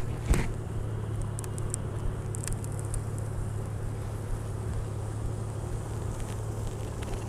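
Wooden beehive top cover being pried up and lifted off the hive body: a sharp knock about a third of a second in, then a few light clicks and cracks over the next couple of seconds, over a steady low hum.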